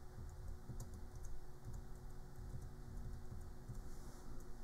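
Faint typing on a computer keyboard, scattered separate keystroke clicks, as a folder name is typed.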